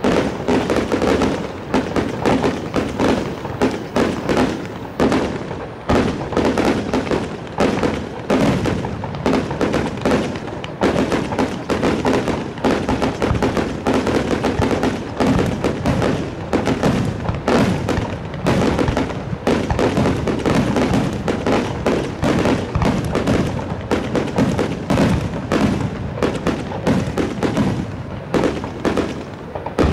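Aerial fireworks bursting in a dense, continuous barrage: many bangs a second with no letup, their reports echoing into one another.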